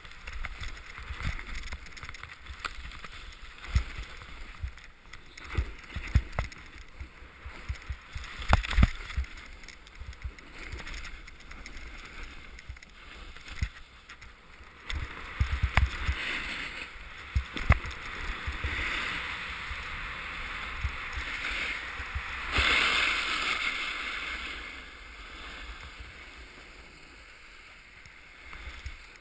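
Wind buffeting and knocks on a GoPro's housing during a ski-run descent, with the hiss of edges sliding and scraping over the snow. The scraping hiss builds in the second half and is loudest about three quarters of the way through, then fades.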